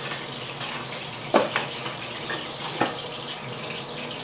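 Metal kitchen utensils clinking and clattering as hands rummage through a crowded drawer, with a couple of louder clanks about a second and a half in and near three seconds in, over a steady background hiss.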